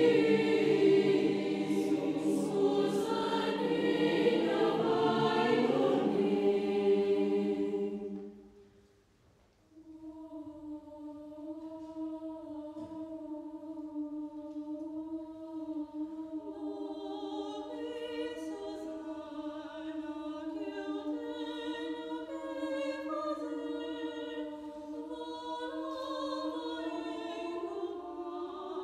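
Large mixed choir of men's and women's voices singing. A loud full passage fades away about eight seconds in, there is a brief hush, and then the choir comes back softly with held chords.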